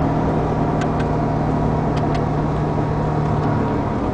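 Porsche Panamera heard from inside the cabin while cruising: a steady engine drone with road and tyre noise, the engine note dropping away shortly before the end.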